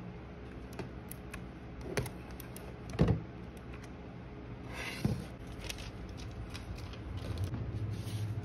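Hard plastic knocks and clicks as a Divoom Ditoo pixel-art speaker is handled, lifted out of its plastic carry case and set down on a table, the loudest knock about three seconds in and a short scrape just before another knock about five seconds in.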